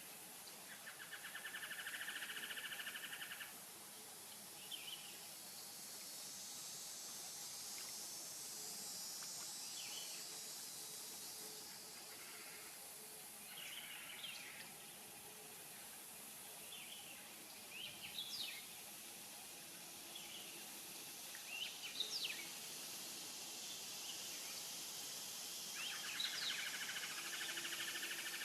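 Swamp wildlife ambience: scattered short bird chirps and calls, a rapid pulsing trill near the start and again near the end, over a steady high insect hiss.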